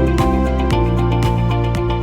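Background music: sustained pitched instrumental notes over a regular beat.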